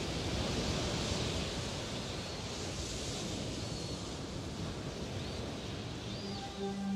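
A steady wash of rushing noise that swells slowly, with a few faint short high chirps over it. Soft ambient music notes come in near the end.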